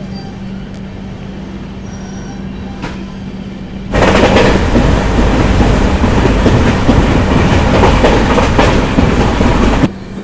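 A steady low hum, then about four seconds in a passenger express train's loud running noise on the rails starts suddenly and cuts off suddenly about six seconds later.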